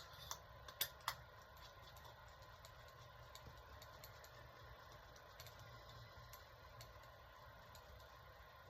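Faint, light metallic clicks and ticks from small parts, a few sharper ones in the first second and then scattered small ticks: cylinder head nuts being fitted onto the studs by hand.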